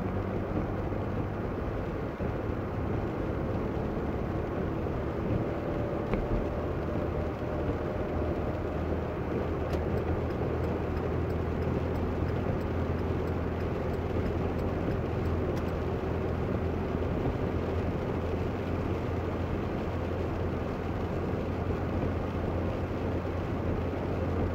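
Steady cabin noise of a car driving on a wet road: a low engine and road hum with tyres running on wet pavement, unbroken throughout.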